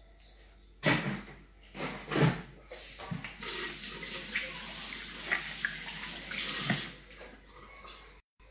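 Kitchen tap running into a stainless steel sink while hands are rinsed under the stream, a steady hiss for about four seconds that stops near the end. A few knocks and clatter come before the water starts.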